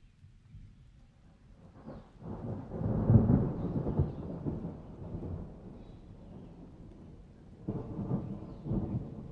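A low, noisy rumble that swells about two seconds in, peaks a second later and fades, then comes back more weakly near the end.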